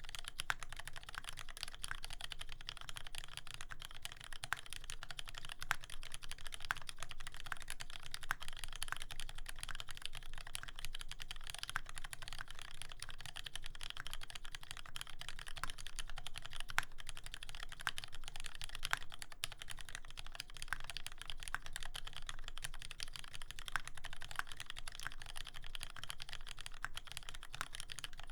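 Continuous fast typing on a custom mechanical keyboard with lubed linear Retooled Cherry MX Black switches (70 g springs) in a brass plate with foam dampening, under GMK keycaps: a dense, even stream of keystroke clicks without pauses.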